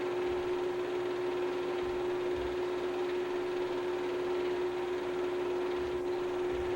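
Steady hum and hiss with one constant mid-pitched tone that never changes: the background noise of a silent film transfer, with no sound from the film itself.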